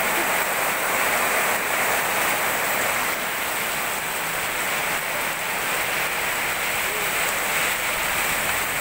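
Heavy rain falling in a steady downpour, an even, unbroken hiss of rain on the street and surfaces.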